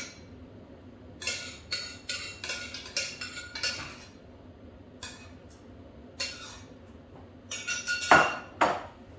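Spoon scraping and tapping inside a small saucepan: a quick run of scrapes and clicks in the first few seconds, a couple more after a pause, then two louder knocks near the end.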